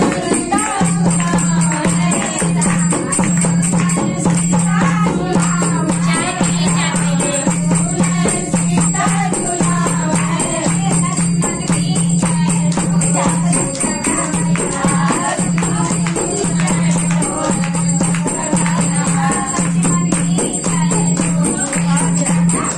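A group of women singing a devotional folk song together to a dholak drum played with a steady beat, with hand clapping.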